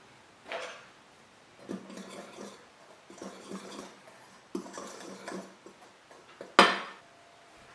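Kitchen utensil working against a mixing bowl in three runs of quick stirring strokes, with a single sharp clink of metal on the bowl near the end.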